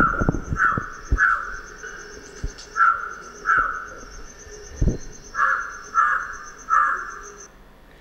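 Recorded jungle crow (large-billed crow) cawing: about eight harsh caws in groups of three, two and three, varying from one caw to the next. A steady high, pulsing tone runs behind them and stops near the end.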